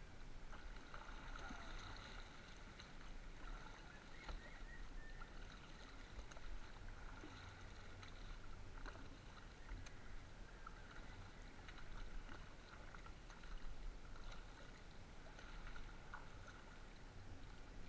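Water lapping and trickling against the hull of a small wooden outrigger canoe on calm sea, with a few faint clicks.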